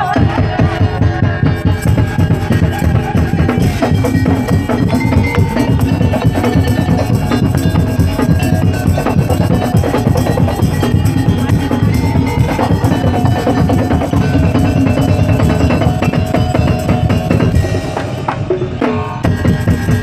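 Madurese daul (tong-tong) ensemble playing loud and without a break: a dense, driving drum rhythm with wooden percussion and melodic lines held over it.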